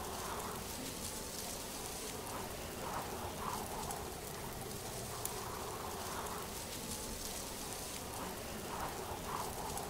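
A steady hiss of noise, even throughout, with a few faint, indistinct sounds in it.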